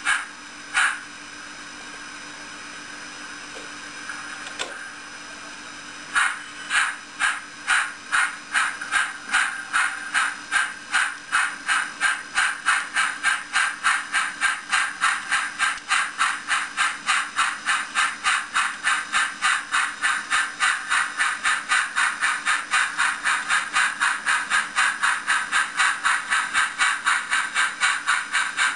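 Sound-equipped H0n3 model of a D&RGW K-27 steam locomotive, No. 462, with its sound system playing steam effects. There is a steady hiss at first, and after about six seconds the exhaust chuffs start and speed up to about three a second as the locomotive gathers speed.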